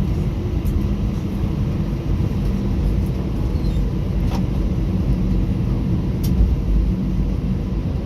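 Airbus A320 heard from inside the cabin: a steady low rumble with an engine hum, and a few faint clicks.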